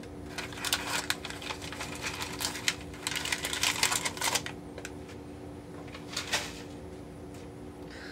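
Freezer paper and clear plastic mold liner being crinkled and crumpled by hand: a run of sharp crackles that grows dense about three to four seconds in, then one more crackle about six seconds in, over a faint steady hum.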